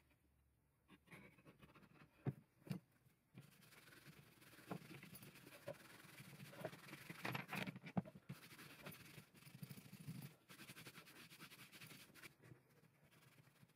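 Faint rubbing of a cloth pad over a leather strap as a finish is worked into it, in irregular strokes with a few light knocks.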